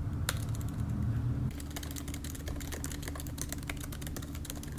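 Typing on an Apple MacBook laptop keyboard: a few keystrokes at first, then quick continuous tapping from about a second and a half in, over a low steady hum.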